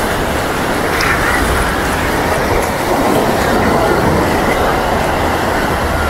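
Beach ambience: waves washing on the shore and the chatter of a crowd, under a steady low rumble.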